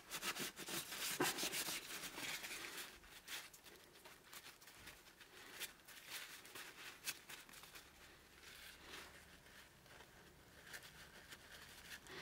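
Paper towel rubbing and rustling over the vinegar-soaked steel parts of an adjustable wrench as they are wiped down, with a few small clicks. It is busiest in the first couple of seconds, then fainter.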